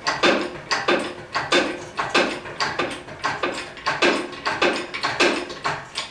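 Steady rhythmic mechanical strokes from hand work on the truck's drivetrain, each a short grating clack, a little under two a second.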